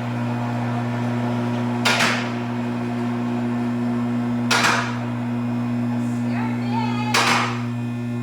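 Vehicle lift raising a car: its motor hums steadily while the safety locks catch with a sharp, loud click about every two and a half seconds, three times.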